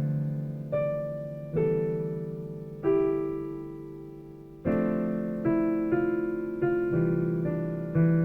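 Slow solo piano music: notes and chords struck a second or so apart, each left to ring and fade, with one chord held longer in the middle before the playing picks up again.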